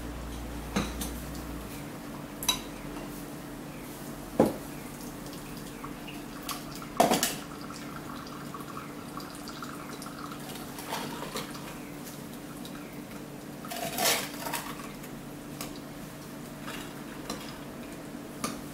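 Scattered clinks and knocks of hand-drip coffee gear being handled on a wooden counter: a stainless kettle set down, and a ceramic dripper and glass server moved about. The knocks come singly every few seconds, the loudest about seven seconds in with a short ring and a brief clatter around fourteen seconds, over a faint steady hum.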